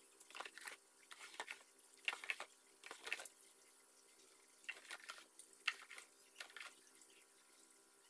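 Liquid sloshing and splashing faintly in a plastic tub as it is rocked by hand, a chemical stripping bath with a motorcycle brake caliper lying in it. Short splashes come in small clusters, about every second or so, easing off near the end.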